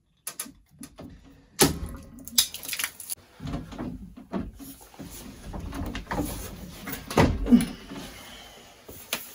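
Close-up handling noise: a fleece sleeve brushing near the microphone, with knocks, clicks and scrapes as PVC pipe fittings are gripped and worked on a wall. A loud scuffing knock about a second and a half in, and a few thumps near the end.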